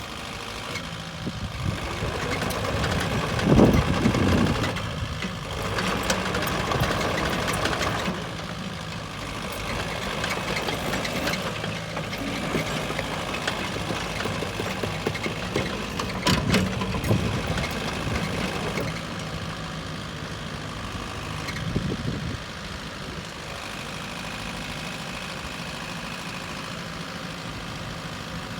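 Diesel engine of a JCB 85Z-1 midi excavator running steadily, with several short spells where it gets louder and harsher, the first and loudest about three and a half seconds in.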